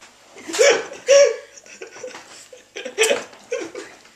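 Teenage boys laughing in short bursts, their reaction to the sourness of the raw lemon segments they are eating.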